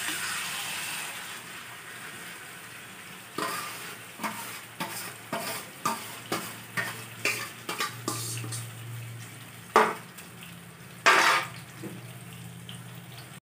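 Yogurt-marinated chicken sizzling as it goes into hot refined oil in a kadai. The hiss is strongest at first and fades, then a metal spoon scrapes and knocks about twice a second as the rest of the chicken is spooned in, with two louder clanks near the end.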